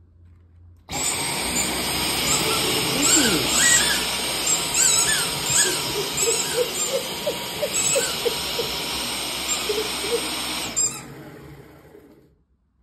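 Cordless stick vacuum switched on about a second in and running steadily with a high whine, while a dog's squeaky ball squeaks over and over in short chirps as the dog chews it. The vacuum is switched off near the end and its motor winds down.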